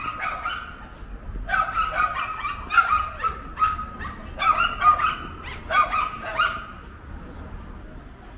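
Angry dogs barking in quick, high-pitched clusters of several barks at a time, dying away near the end.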